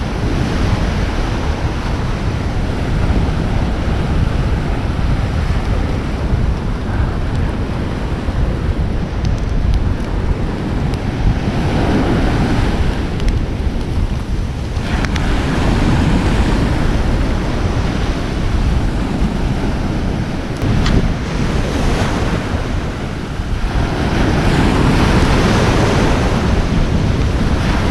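Ocean surf washing onto the beach, with wind buffeting the microphone as a steady low rumble; the surf swells louder a few times.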